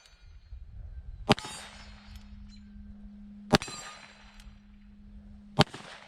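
Three shots from a Ruger Blackhawk Bisley single-action revolver in .45 Colt, about two seconds apart as it is cocked and fired one round at a time, each shot followed by a ringing tail.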